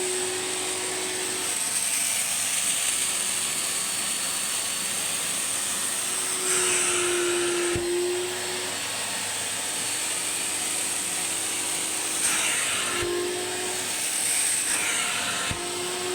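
Washing (spray-extraction) vacuum cleaner running steadily with a hum and a high whine. Three times the sound swells into a louder hiss for about a second, each ending in a short click.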